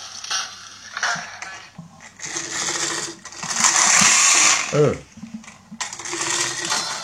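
Friction motor of a toy Decoy Detonator whirring as it is wound and run. It goes in two spells: a whirr that builds from about two seconds in and stops around the fifth second, then a fresh whirr near the end.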